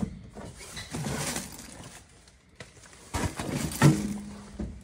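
A sharp click, then soft knocks and rustling as a Furrion microwave's door is handled.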